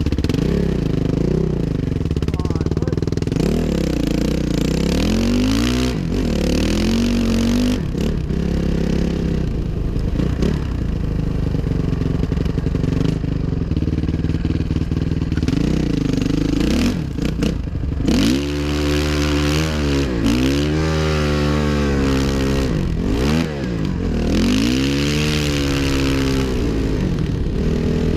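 Suzuki RM-Z 450 dirt bike's single-cylinder four-stroke engine under way, its pitch rising and falling again and again as the throttle is opened and rolled off, with repeated rev swells through the second half.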